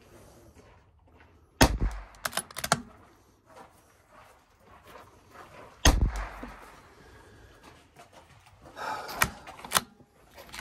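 A CZ 457 .22 rimfire bolt-action rifle fires twice, about four seconds apart. Metallic clicks of the bolt being worked follow the first shot, and there are more bolt clicks near the end.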